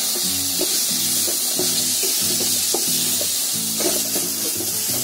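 Chopped onion frying and sizzling in a chili-garlic paste in a steel kadai, stirred and scraped with a wooden spatula, under background music of steady low notes.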